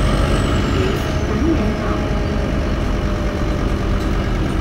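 Scania K230UB bus's DC9-16-230 five-cylinder diesel engine running with a steady low drone. Its turbocharger whistles high above the drone, and the whistle slides down in pitch about a second in as the turbo spools down.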